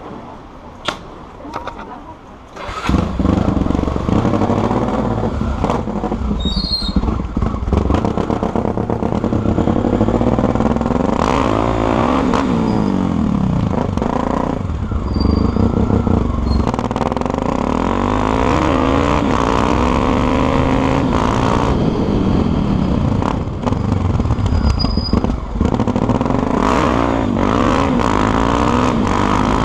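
Honda XR250 Tornado's single-cylinder four-stroke engine starting about three seconds in after a few clicks, then running with repeated revs rising and falling.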